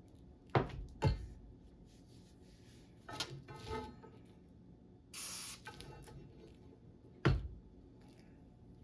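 Parts of an Olympic barbell being handled during reassembly: two sharp knocks near the start, a short rattle around three seconds in, a brief hiss about five seconds in, and another sharp knock near the end.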